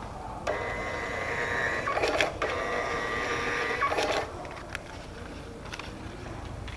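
Custom KUBE II thermal kiosk printer printing a boarding pass: a steady mechanical whir with a high even tone for about three and a half seconds, with a few sharp clicks, the last as it stops.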